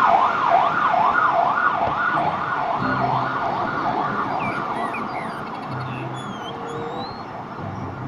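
Fire engine siren sounding in a fast rising-and-falling yelp, about two sweeps a second, fading over the last few seconds.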